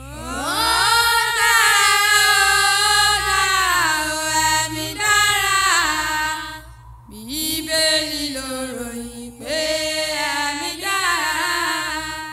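A woman's voice singing long, drawn-out notes that slide between pitches in the slow opening of a Yoruba gospel song, in three phrases with short breaks about seven and nine and a half seconds in.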